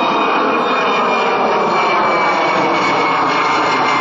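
Embraer E-Jet regional jet's twin turbofan engines at takeoff climb thrust, a loud, steady jet noise with a high whine that slowly drops in pitch as the jet climbs away overhead.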